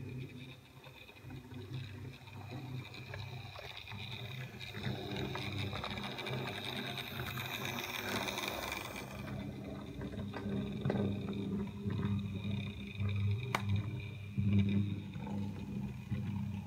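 OO gauge model train, a small tank locomotive with its coach, running on the layout: a steady electric-motor hum with running noise that swells as it passes close about halfway through. One sharp click comes about three-quarters of the way through.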